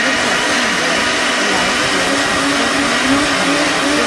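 An electric mixer grinder (mixie) running steadily, blending a curd mixture in its jar. Its motor pitch dips and recovers in the first couple of seconds, then holds steady.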